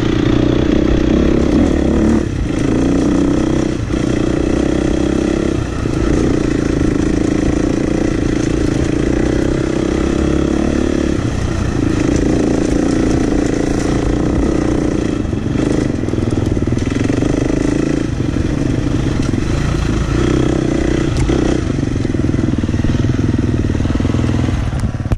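Husqvarna FX 350 dirt bike's four-stroke single-cylinder engine running under way, steady and loud, with short dips in the engine note every few seconds.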